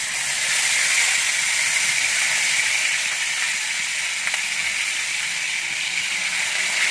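Chili-stuffed torpedo scad (cencaru) sizzling steadily in shallow hot oil in a frying pan as the fish are laid in.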